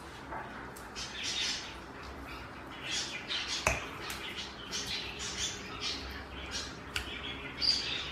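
A latex-gloved hand rubbing a wet ginger-garlic and lemon marinade onto raw fish steaks on a plate: repeated soft squelching and rubbing strokes, with a couple of light taps on the plate.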